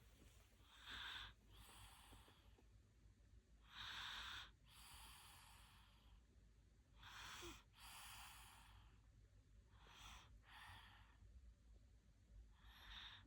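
A toddler snoring softly in sleep: a raspy breath in followed by a longer, softer breath out, repeating about every three seconds.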